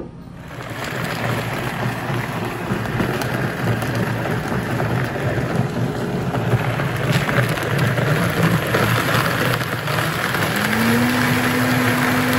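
Steady rushing noise, with a steady low hum coming in about ten seconds in.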